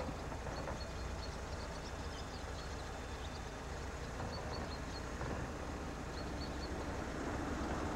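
Outdoor ambience: a steady low rumble with scattered faint high chirps. A motor vehicle grows louder near the end.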